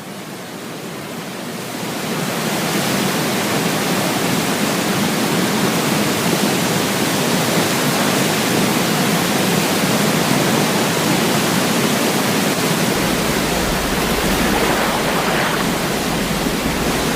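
Waterfall in flood, a heavy steady rush of water going over the falls, swelling up over the first few seconds and then holding even.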